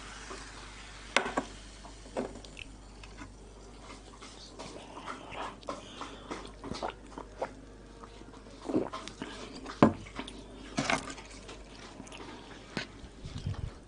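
Close-miked sounds of cola being drunk from a glass and koshari being stirred with a plastic spoon in a paper bowl: soft sips and swallows in the middle, and sharp taps and clicks of can, glass and spoon throughout.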